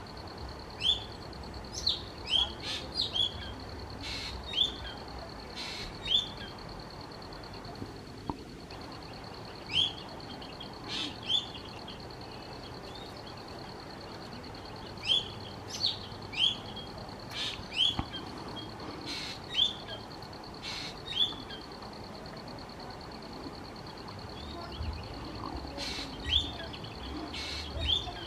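Small songbird calls: short, sharp chirping notes in quick clusters every few seconds, over a steady high-pitched whine.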